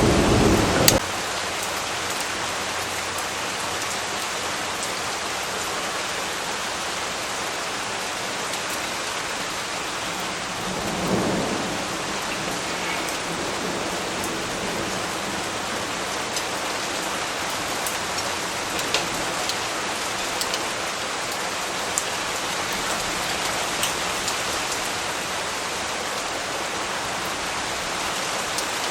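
Steady heavy rain falling as an even hiss. A loud low rumble of thunder cuts off abruptly about a second in, and a softer thunder rumble swells around eleven seconds in.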